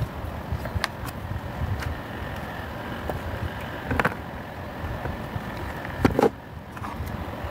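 Light clicks and knocks from tools handled against a small circuit board and work surface, loudest around four seconds in and again about six seconds in, over a steady low background rumble.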